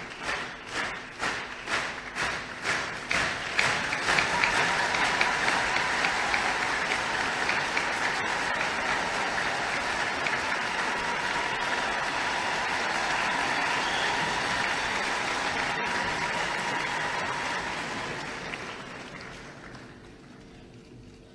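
A large audience clapping in unison, a steady rhythm of about two and a half claps a second, then breaking into sustained applause about four seconds in, which dies away near the end.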